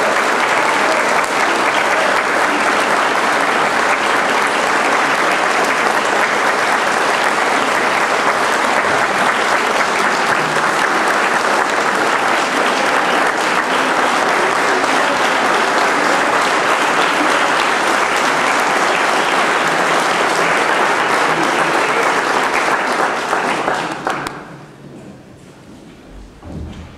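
Audience applauding, a dense and steady clapping that dies away quickly about three seconds before the end.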